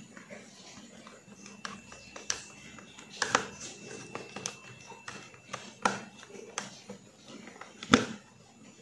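Irregular clicks and knocks of hands and a screwdriver working wires into the screw terminals of a plastic-bodied motor-starter contactor, with the loudest knock near the end.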